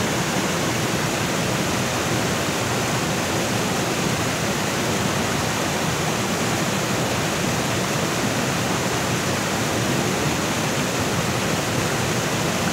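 Waterfall and fast stream water rushing, a steady, loud, even noise with no breaks.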